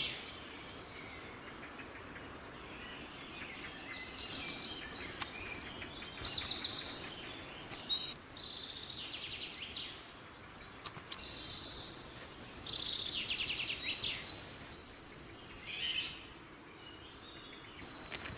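Songbirds singing in woodland: a run of short, high, trilled phrases one after another, over a faint steady background noise.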